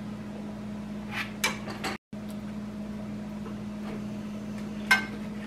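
Kitchenware being handled: a couple of light clinks about a second in and a sharper knock near the end, over a steady low hum.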